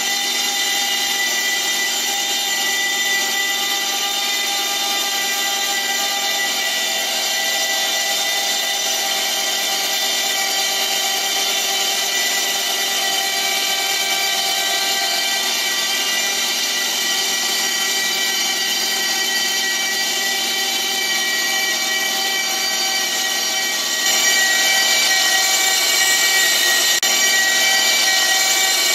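Starter motor of a 5.0-litre BMW M70 V12 cranking the engine steadily on battery power alone, with no fuel or ignition, so the engine turns over without firing while oil pressure builds. The steady whine gets a little louder near the end.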